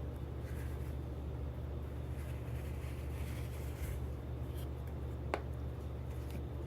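Small objects being handled by hand: light scratching and rustling over a steady low hum, with one sharp click about five seconds in.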